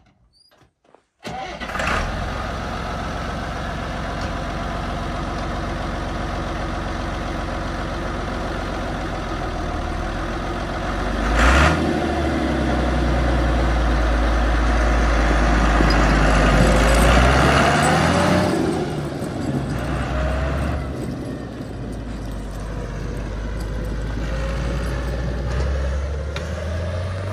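1989 Massey Ferguson 3650 tractor's diesel engine starting about a second in, then running steadily with a deep rumble. It gets louder after a sharp burst near eleven seconds, with the pitch rising and falling, and settles back to a lower, steady run after about eighteen seconds.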